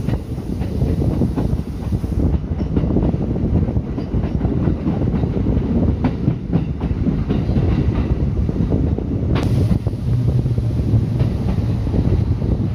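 Kintetsu express train running, its wheels clicking and clattering over the rail joints, heard through an open window. A steady low hum joins about ten seconds in.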